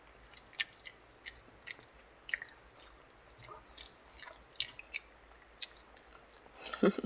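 A small dog chewing baked sweet potato fed to it by hand, with irregular wet smacks and clicks of its mouth. A short voice-like sound comes near the end.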